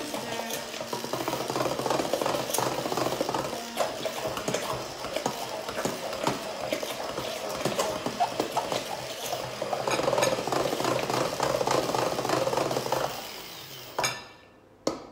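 Electric stick blender running in thick cake batter in a glass bowl, with many small clicks of the blade guard against the glass. It is switched off about 13 seconds in, followed by a couple of sharp knocks.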